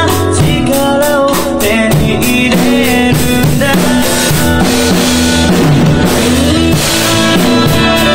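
Yamaha acoustic drum kit played along to a recorded rock song, kick, snare and cymbals over guitar and a sung melody in the backing track, with cymbal crashes about halfway and again near the end.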